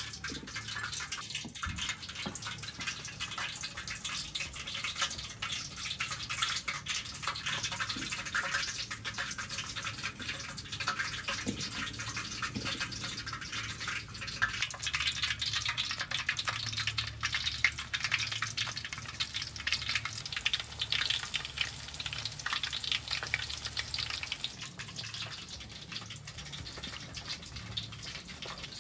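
Dry flattened rice flakes rustling and crackling as fingers press and turn coated chicken feet in them, a dense, steady crackle.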